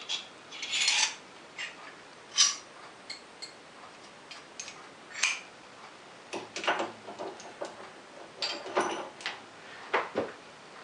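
Steel parts and hand tools clinking and knocking against each other and the milling machine's table as a steel drawbar is handled and worked in the vise: irregular sharp metallic clinks, more frequent in the second half.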